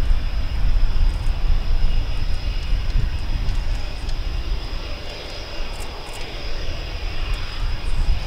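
Panavia Tornado's twin RB199 turbofans idling on the ground: a steady low rumble with a thin, steady high whine above it, easing slightly in level about halfway through.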